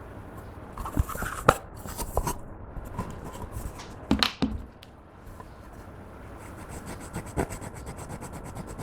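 Pressed eyeshadow being scraped and handled: a few sharp clicks and knocks, then a fast, even scraping of about ten small strokes a second near the end.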